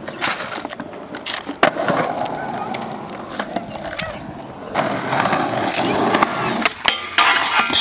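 Skateboard wheels rolling over concrete in two runs, one after the other. Sharp clacks of the board on the ground come a little under two seconds in and a few times near the end.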